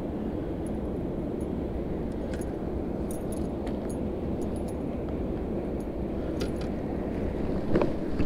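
Small metallic clinks of a spinnerbait's blade, wire and hooks being handled, over a steady rushing background. A brief louder sound comes near the end.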